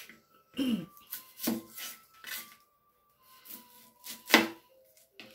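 Chef's knife cutting an onion on a plastic cutting board: a handful of separate knocks and crackles, the loudest about four seconds in.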